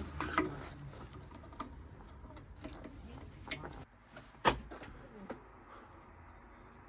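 A few clicks and knocks of a vehicle's door and fittings, with one sharp knock about four and a half seconds in like a door shutting, after which the background goes quieter.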